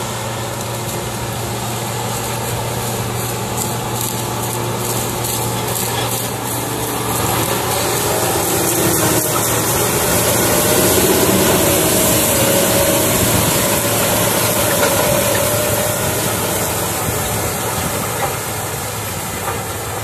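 Case IH Quadtrac tractor's 12.9-litre six-cylinder two-stage turbocharged diesel running steadily as it pulls a tillage implement past, growing louder toward the middle and easing off as it moves away, with a steady high hiss over it.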